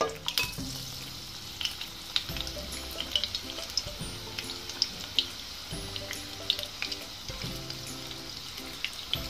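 Batter-coated paneer pakodas deep-frying in hot oil over a high flame: a steady sizzle with many sharp crackles and pops. Soft background music with a repeating pattern of low notes plays underneath.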